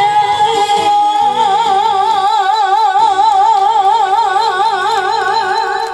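A woman singing into a handheld microphone over an amplified backing track. She holds one long note with wide, even vibrato, and it stops just before the end.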